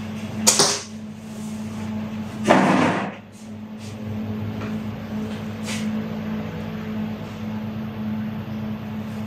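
A steady low hum, with a sharp knock about half a second in and a louder clatter lasting about half a second around two and a half seconds in.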